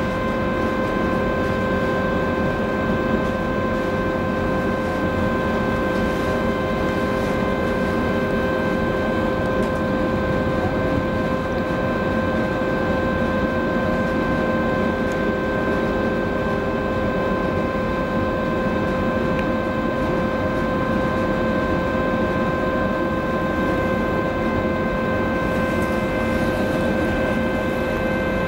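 Large cruise ferry's engines and machinery running steadily as it manoeuvres away from the quay: a constant rumble under an unchanging whine of several pitched tones.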